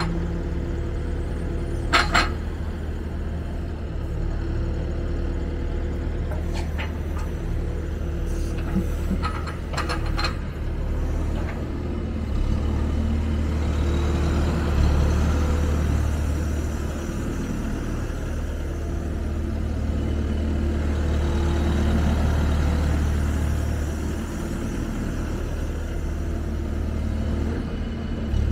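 Wheeled excavator's diesel engine running steadily under hydraulic load as the upper structure swings and the boom and arm move, the sound swelling through the middle stretch. A few sharp metallic clanks come about two seconds in and again around ten seconds.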